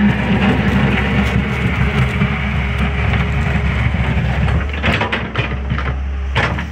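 CAT M316D wheeled excavator's diesel engine running hard under hydraulic load as the boom and bucket move. Several sharp metal knocks and scrapes come near the end.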